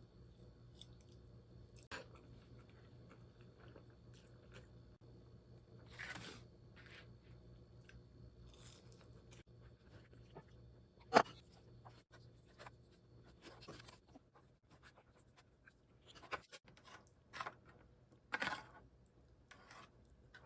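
Quiet room with a low steady hum and scattered small clicks, taps and rustles of things being handled, the sharpest a single click about eleven seconds in and a few more near the end.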